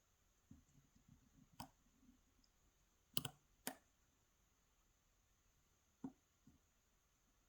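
Lock pick working the pins of a Yale 2000 Plus lock: faint clicks and ticks from the pick and pins. A quick run of light ticks comes about half a second in, two sharper clicks about three seconds in, and two more a little after six seconds.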